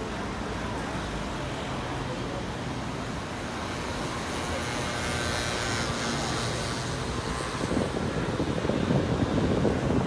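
Steady outdoor city background noise: a low traffic rumble. About three-quarters of the way through it grows louder and rougher.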